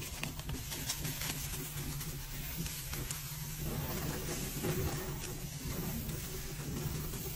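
Powdered laundry detergent pouring in a stream into a foamy top-loading washing machine, a steady hiss over a constant low hum from the machine.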